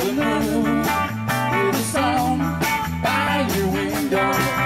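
A live band playing an instrumental passage: electric guitar, bass guitar and drum kit, with a wavering lead melody over a steady drum beat.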